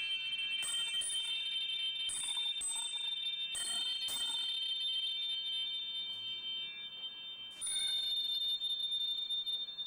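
Small metal bells or chimes struck repeatedly in free time, each strike leaving a bright high ringing that lingers and overlaps the next. The ringing fades in a short lull before a fresh strike about three-quarters of the way through.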